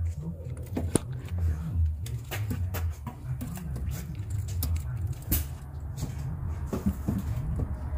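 Scattered small clicks and taps of a wire-piercing probe and wiring being handled at a plastic connector, over a steady low rumble.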